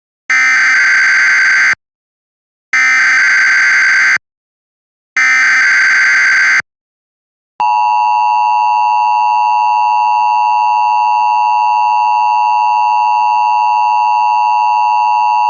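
Emergency Alert System SAME header: three identical bursts of digital data tones, each about a second and a half long with a second's gap between them. About seven and a half seconds in, the EAS two-tone attention signal (853 and 960 Hz together) starts and holds steady.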